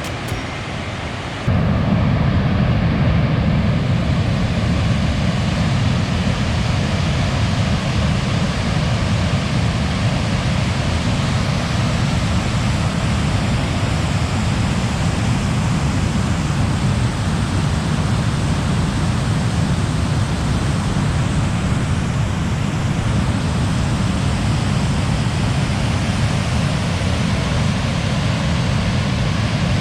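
Steady road and engine noise of a car driving, picked up by a camera mounted on the car, with a heavy low rumble. It jumps louder about a second and a half in.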